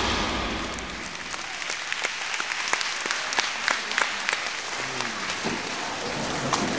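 Small audience applauding as the music ends, separate hand claps heard one by one rather than a dense roar.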